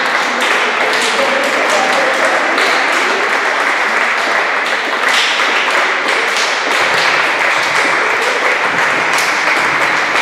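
Crowd applauding steadily, many hand claps blending into a continuous patter, with voices mixed in.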